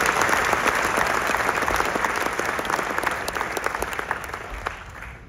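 Audience applauding: a dense round of clapping that thins out and fades away over the last two seconds.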